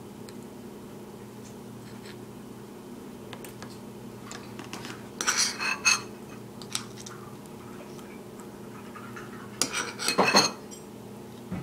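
Metal spoon scraping and clinking against a ceramic bowl while scooping a soft ricotta filling, in two short bursts about five and ten seconds in. A steady low hum runs underneath.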